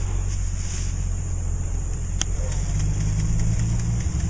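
Steady low rumble on the microphone under a steady high hiss, with a single sharp crack about two seconds in.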